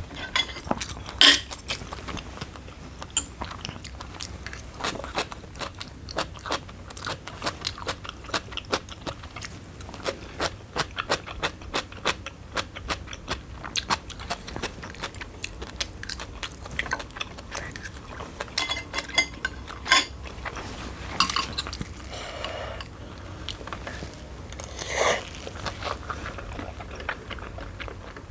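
Close-miked mukbang eating: a person biting and chewing food, with many quick, irregular crunchy and wet mouth clicks. A steady low hum sits underneath.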